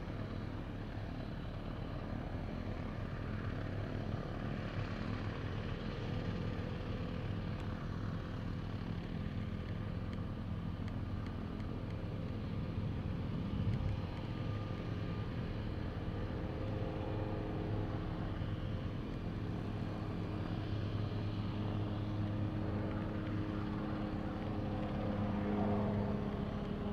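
Mooney M20 single-engine piston airplane flying overhead, a steady engine-and-propeller drone that grows louder near the end as the plane comes closer.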